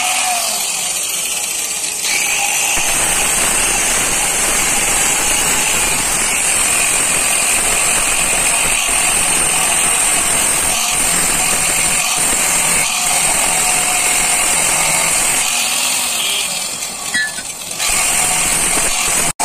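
Large corded angle grinder with an abrasive cut-off disc cutting into a steel truck suspension part: a steady, loud grinding with a strong high hiss. The grinding eases briefly near the end, then picks up again.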